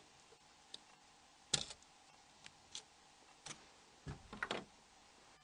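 Faint, scattered small clicks of a flat-bladed screwdriver and Torx driver working against the Nokia N80's C-cover catch spring, prying it loose. The sharpest click comes about one and a half seconds in, and a quick cluster follows just after four seconds.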